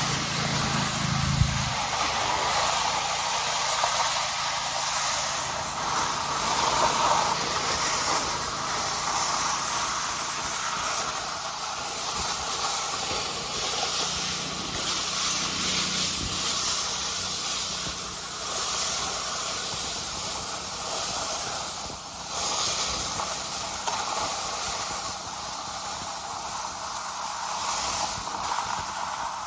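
Car driving over frozen sea ice: steady hissing tyre and wind noise with a low engine hum underneath.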